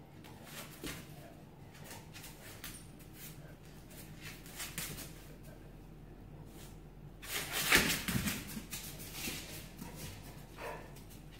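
A dog and a cat play-fighting on a tile floor: scattered clicks and scuffs of paws and claws on the tiles, with a louder flurry of scuffling about eight seconds in.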